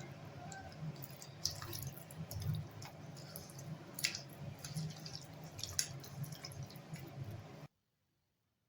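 Hands squishing and kneading chicken legs in a thick, wet yogurt-and-spice-paste marinade: irregular squelches and small wet clicks over a low steady hum. The sound cuts off suddenly near the end.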